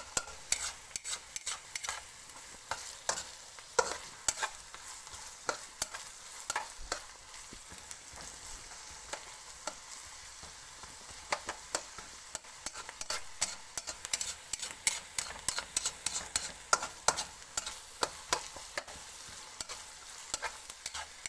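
Diced onions sizzling in hot oil in a wok, with a steady hiss. A plastic spatula stirs them, scraping and clicking against the pan again and again.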